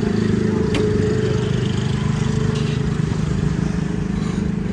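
A motor or engine running steadily, with one sharp click about three quarters of a second in.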